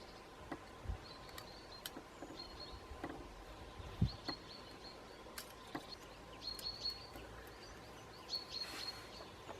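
A bird chirping in short repeated calls, with scattered light clicks and one duller knock about four seconds in from the metal plates of a small micro hobo stove being handled and slotted together.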